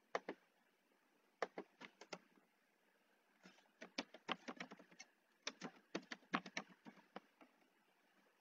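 Faint typing on a computer keyboard: a pair of clicks near the start, a few scattered keystrokes, then a quick, irregular run of keystrokes for about four seconds in the middle as a username is typed.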